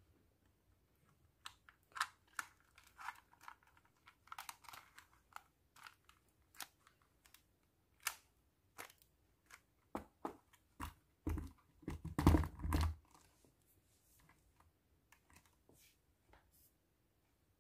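Plastic handling noise from a bendable-leg octopus tripod and a camcorder: scattered clicks, rattles and scrapes as the camera is screwed onto the mount and the jointed legs are handled. About two-thirds of the way through comes a run of heavier knocks and thumps.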